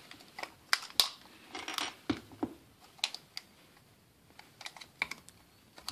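Irregular plastic clicks and knocks as a GoPro HERO4 with its battery pack attached is worked into its clear plastic extended housing, the fit tight enough that it takes several tries.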